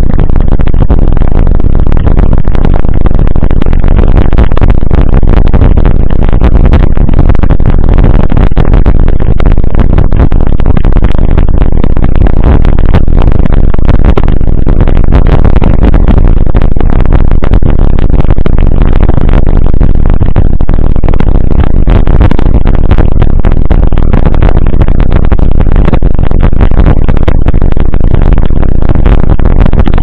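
Mountain bike rolling fast down a gravel dirt road, heard through a handlebar-mounted camera microphone. Loud, steady wind and road rumble overload the microphone, with constant small rattles and knocks from the rough surface.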